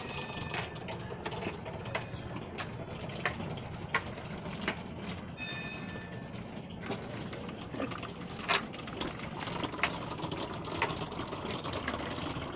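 A row of hand-turned Tibetan prayer wheels being spun one after another, each knocking and rattling on its spindle: a string of sharp knocks, roughly one or two a second.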